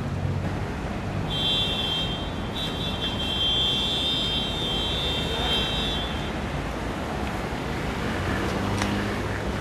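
Outdoor street ambience: a steady wash of traffic noise. About a second in, a high, shrill steady tone starts; it breaks off briefly once and lasts about five seconds.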